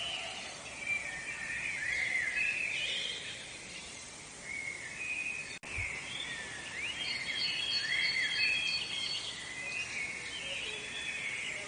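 Several woodland birds singing and chirping at once, with overlapping warbled phrases and repeated high chirps. A single brief click comes about halfway through.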